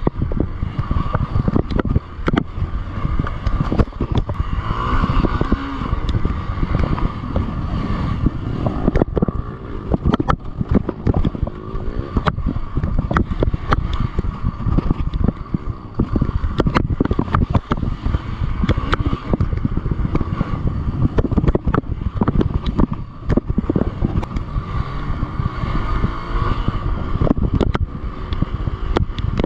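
Hero Xpulse 200 single-cylinder motorcycle engine running hard off-road, with constant knocks and clatter from the bike over rough ground.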